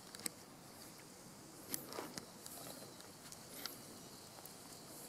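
Faint crinkle of a dry leaf with a few light ticks, as an ember and its dust are tipped off the leaf into a nest of dry grass tinder.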